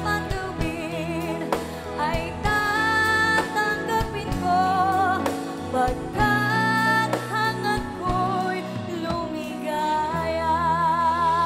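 A woman singing over instrumental backing music, holding long notes with vibrato; the longest held note comes near the end.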